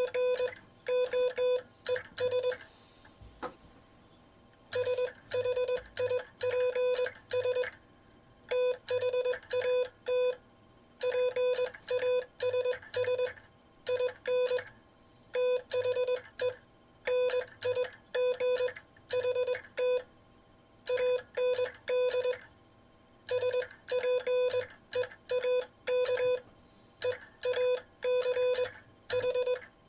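Morse code sent on a Vibroplex bug (semi-automatic key) in the classic bug sending style, heard as a steady mid-pitched tone keyed on and off in dots, dashes and letter groups. There is a pause of about two seconds near the start, and some of the timing is a little uneven while the sender learns the technique.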